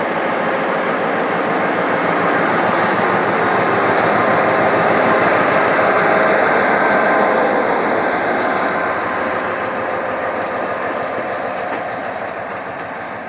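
GM G22 diesel-electric locomotive running during shunting moves. Its engine and rolling noise grow louder toward the middle and then fade away.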